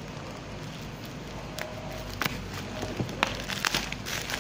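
Bubble wrap around an axe crinkling as it is handled, with scattered sharp crackles, most of them in the second half.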